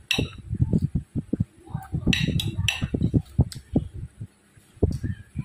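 Close-up chewing and mouth sounds of a person eating, a rapid run of soft low thumps, with a metal spoon clinking and scraping on a ceramic plate a few times.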